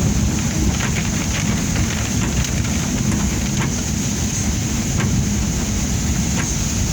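Heavily loaded log truck's diesel engine running with a steady low rumble, with a few faint clicks over it.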